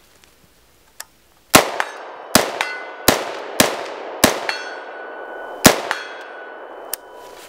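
AR-15 rifle fired six times in semi-auto, still caked with snow from a reliability test, after a small click about a second in. Several shots are followed a moment later by a ringing metallic clang that hangs on with steady tones.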